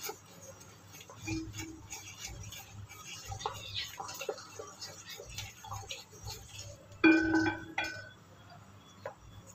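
Wooden spatula stirring pomegranate purée in a kadai, with faint scrapes and light knocks against the pan. About seven seconds in comes a louder, ringing clink of the pan.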